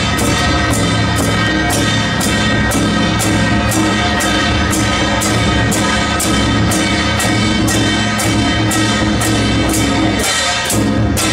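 Temple procession drum-troupe music: a large drum and cymbals struck in a steady beat about three times a second, under wind instruments playing a held melody.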